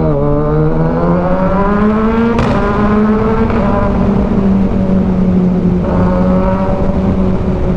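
Kawasaki Ninja 1000SX inline-four through an aftermarket AR shorty exhaust, accelerating under load. The engine note climbs steadily, breaks sharply at an upshift about two and a half seconds in, then runs on at lower, steadier revs.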